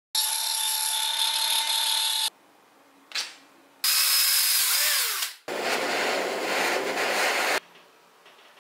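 Electric drill running in three separate bursts of about two seconds each, spinning a small PVC disc mounted in its chuck as it is shaped. The first two runs carry a steady motor whine. The last is a lower, rougher noise without the whine.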